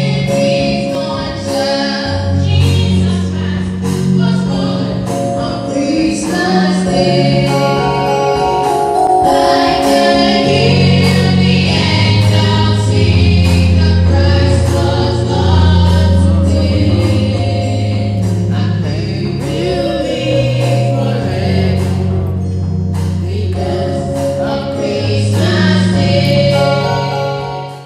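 Music with a choir singing over a bass line and a steady beat, fading out at the very end.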